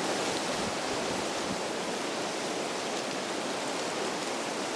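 Steady wind, an even rushing noise through leaves and grass.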